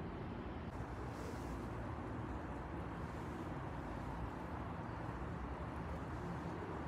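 Steady low outdoor background rumble, an even noise with no distinct events and no calls from the kittens.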